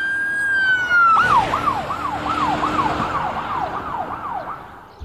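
Police car siren: a held wail that slides slightly down, then switches about a second in to a fast yelp sweeping up and down about three times a second, fading out near the end.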